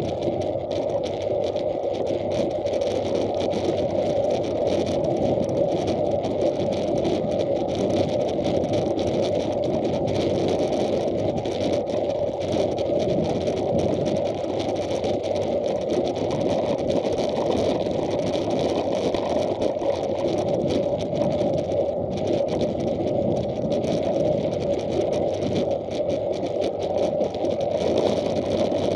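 Steady rolling noise of wheels on an asphalt path while travelling at an even speed, a dense hum with a fainter hiss above it, heard through an action camera's case.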